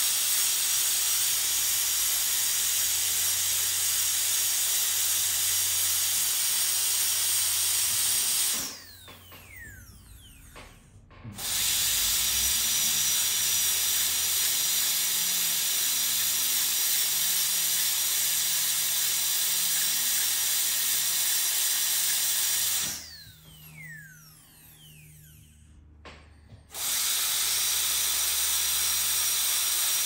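High-speed dental drill with a diamond burr running with a steady hiss and a faint high whine as it cuts through a canary's metal leg band. It stops twice for a few seconds, its whine falling away as it spins down, then starts again.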